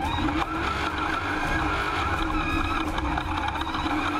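Off-road race truck engine running hard at high revs, the pitch holding with small rises and dips, over heavy low rumble from the rough dirt track, heard from inside the cockpit.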